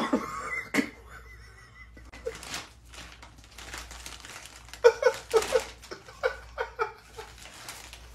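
Plastic bag crinkling and rustling as a cat wriggles with its head stuck inside it, with a run of short laughs from about five seconds in.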